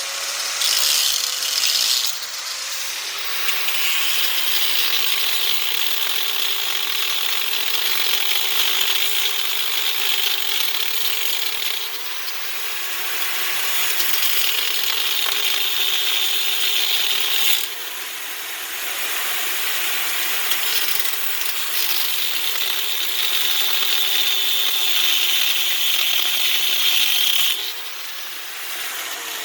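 Grinder cutting into a dented SodaStream CO2 canister: a continuous harsh grinding with the motor's whine sagging and recovering as it bears down. It eases off briefly partway through and again near the end.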